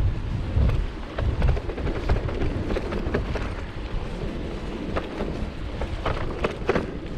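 Wind buffeting the microphone of a handlebar-mounted camera on a moving bicycle, gusting hard and then easing after the first couple of seconds, over the steady noise of the ride. In the second half come a few sharp knocks and rattles from the bike going over bumps.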